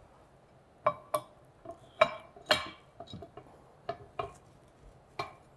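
Metal base and upright of a monitor stand clanking together as they are fitted, a series of about eight light, sharp knocks with a brief ring.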